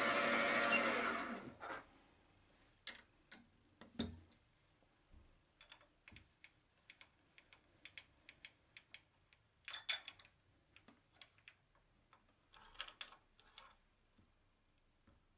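A workshop machine motor running steadily, then shutting off and dying away about a second and a half in. Scattered light clicks and knocks follow, irregular and sparse, with a louder cluster around ten seconds in and another near thirteen.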